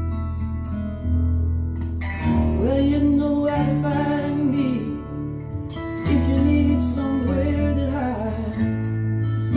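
A song with acoustic guitar, steady bass and a wavering lead melody line between sung lines, played back through a budget Emotiva stereo amplifier and B1+ bookshelf speakers and heard in the room.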